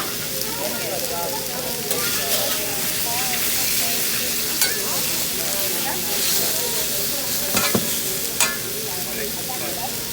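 Food sizzling on a hibachi griddle: a steady frying hiss, with a few sharp clicks in the second half.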